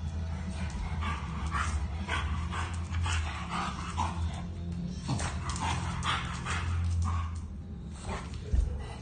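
Two English bulldog puppies play-fighting, with short yips and barks coming several times a second over a low steady rumble, and a thump near the end.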